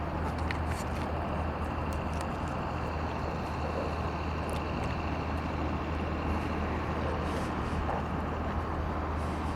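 Steady wind rumble on the microphone, with the faint, steady drone of a Great Planes Yak 55M radio-controlled plane's motor in flight on its landing approach.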